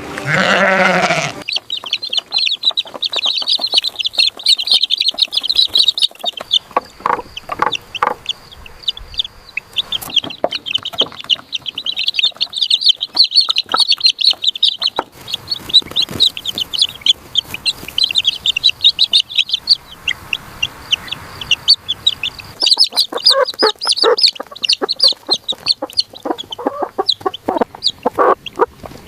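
A flock of chickens calling, with a dense, continuous chorus of short high peeps. Lower clucks come in more strongly during the second half.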